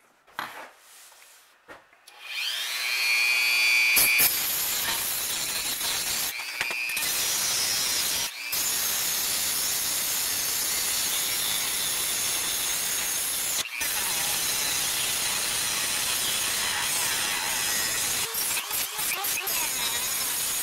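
A Dremel rotary tool spins up with a rising whine about two seconds in, then grinds steadily at the rear axle of a die-cast metal toy tractor. It cuts out briefly three times when the bit comes off the work.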